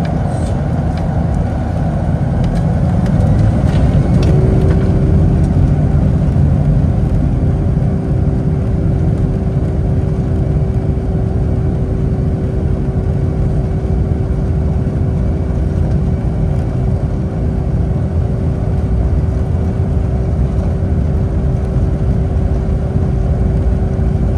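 Boeing 757-232's Pratt & Whitney PW2037 turbofans at takeoff power, heard inside the cabin over the wing: loud, steady engine noise with a deep rumble. About four seconds in, a steady droning tone joins and holds.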